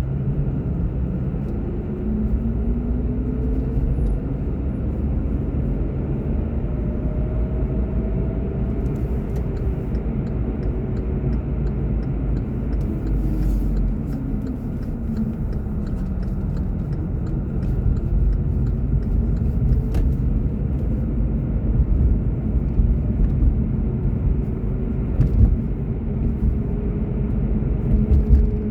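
Car driving: a steady low rumble of engine and tyres, with a faint tone that rises and falls several times as the car speeds up and slows down, and a few light clicks.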